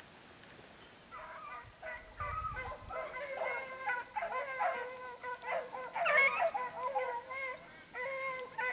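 Beagle hounds baying together, starting about a second in: several drawn-out, overlapping voices as the pack gives tongue on a rabbit's trail.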